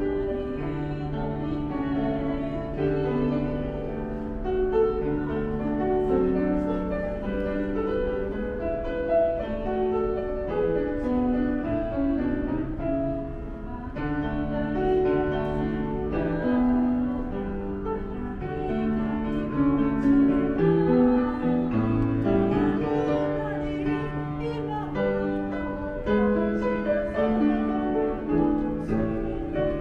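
Instrumental music: a slow melody of long held notes over a steady low bass note.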